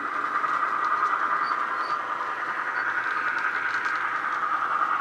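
DCC sound decoder in an Austrains X-46 model Australian diesel locomotive playing a diesel engine running steadily, heard through the model's small onboard speaker. The sound is thin, with little bass.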